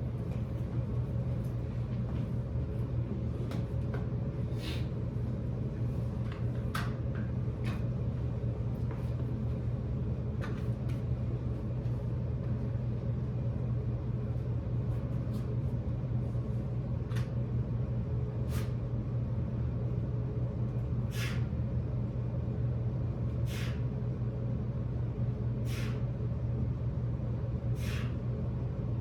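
Steady low hum in a small room, with brief sharp hissy sounds that come irregularly at first and then about every two seconds in the second half.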